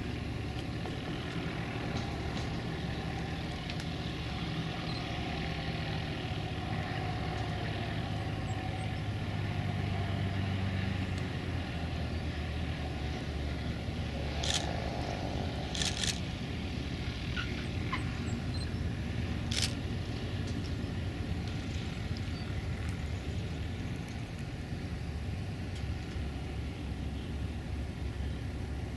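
Cessna 172 piston engine droning steadily over a noisy background. The drone swells around a third of the way in, and a few short sharp clicks sound around the middle.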